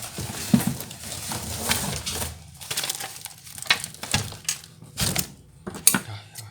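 Plastic wrapping and packing material crinkling, crumpling and tearing as a thickly wrapped parcel of steel plate parts is unwrapped by hand, with many sharp clicks and knocks along the way.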